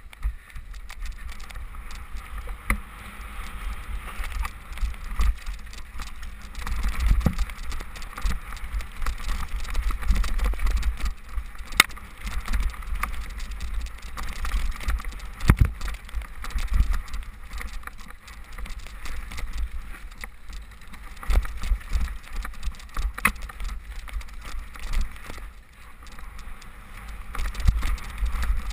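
Specialized Demo 8 I downhill mountain bike rattling down a rough, muddy trail: a constant low rumble with many sharp knocks and clatters from the bike over bumps, the loudest about halfway through.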